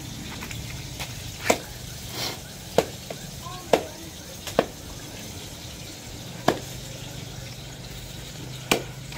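A large knife chopping a spiny eel (ikan tilan) into pieces on a wooden cutting board: six sharp chops at uneven intervals of one to two seconds.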